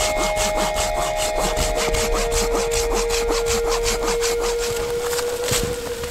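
Folding hand saw cutting through a thin wooden pole in quick, even rasping strokes, about four a second, that stop near the end.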